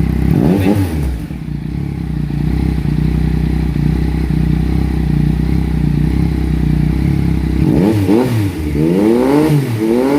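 Yamaha MT-09's three-cylinder engine through a full Akrapovic exhaust with the dB killer removed, loud. It idles after a short blip of the throttle, then is revved in several quick blips near the end.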